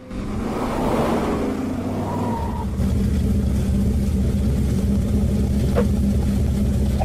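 Motor-vehicle engine sound effect: a car engine revving as it pulls away, then changing about two seconds in to a deeper, steady engine rumble. A short tick comes near the end.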